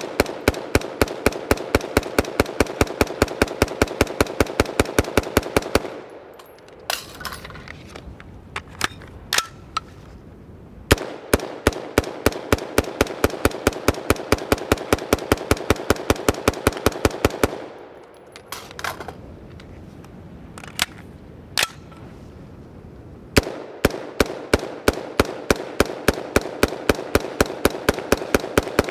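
Rapid fire from a direct-impingement BCM AR15 in 5.56, about five shots a second, in three long strings. Short pauses between the strings hold a few metallic clanks as empty magazines are swapped. The rifle keeps cycling without a stoppage while run hot and uncleaned through a 1,000-round test.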